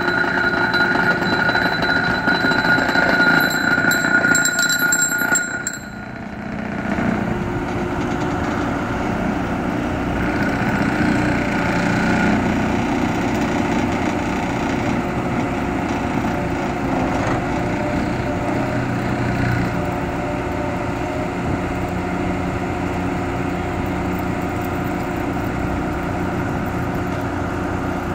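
John Deere 120C excavator's diesel engine running steadily. Over it, a high, steady whine lasts about six seconds and cuts off suddenly, leaving the engine alone.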